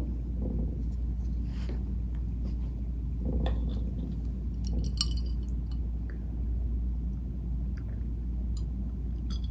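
Quiet eating sounds: chewing with a few light clinks and taps of a glass and tableware, over a steady low room hum.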